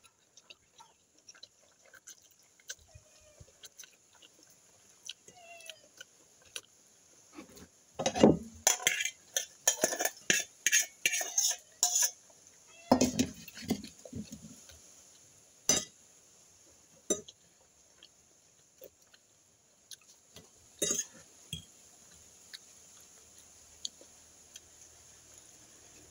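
Metal fork clinking and scraping on a glass plate while eating spaghetti. There are scattered light clicks, a dense run of loud clinks about eight to twelve seconds in and another brief run just after, then a few single clinks.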